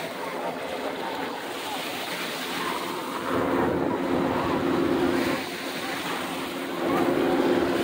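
Gentle surf and wind on the microphone, with a steady drone of distant aircraft engines that comes in about three seconds in, fades, and returns near the end.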